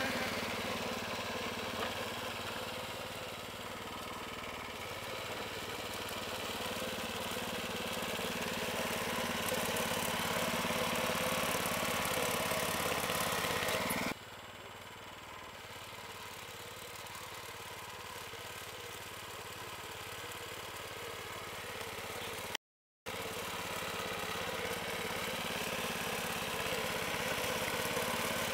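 A KADVI MB-1 walk-behind tractor's engine runs steadily. The sound drops suddenly in level about halfway through and cuts out completely for a moment about two-thirds of the way in.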